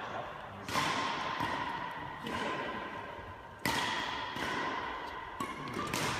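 Badminton rackets striking a shuttlecock in a rally: three sharp hits about a second and a half apart, each ringing on in the echo of a large sports hall, with fainter knocks near the end.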